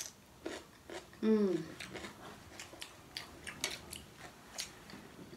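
Raw cucumber slices being bitten and chewed, a string of short crisp crunches. About a second in, a brief loud vocal exclamation falls in pitch.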